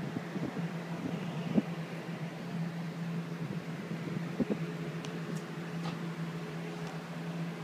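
A steady low mechanical hum, like a fan or household appliance running, with a few faint light taps.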